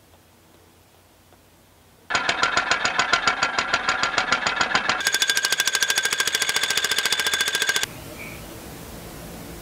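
Near silence, then about two seconds in an electric demolition hammer starts pounding in a rapid, loud, even rhythm. About five seconds in the hammering turns faster and more ringing. It cuts off abruptly near eight seconds, leaving a steady low hiss.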